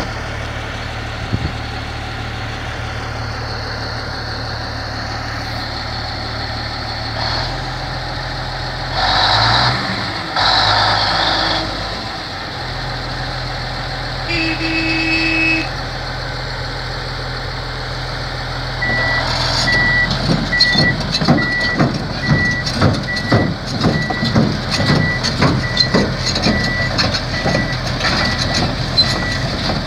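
Komatsu D375A bulldozer's diesel engine running steadily, with a few short louder bursts about a third of the way in. About two thirds in, its backup alarm starts beeping in a quick steady rhythm while the steel tracks clank as the machine moves off the lowboy trailer.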